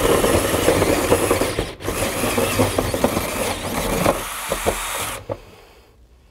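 Cordless drill spinning a 6-inch hole saw up through a drywall ceiling, grinding through the board inside a dust-catching cup. It stops for a moment about two seconds in, runs again, and stops for good a little after five seconds.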